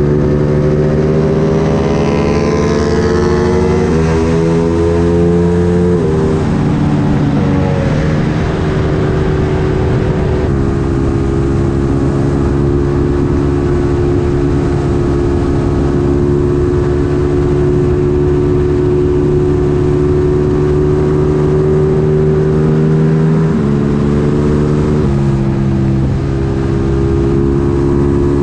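Ducati Panigale 959's L-twin engine under way at speed, pulling up through the gears in rising steps over the first ten seconds, then holding a steady cruise with a couple more gear changes near the end, with wind rush over the fairing.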